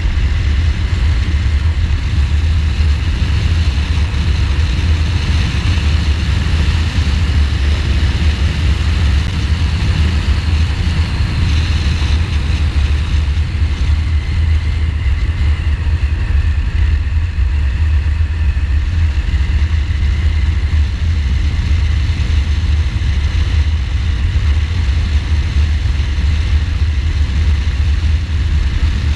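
A 2015 Ducati Multistrada's V-twin running at a steady cruising pace, mixed with rushing wind on the microphone. A heavy, even low rumble is the loudest part.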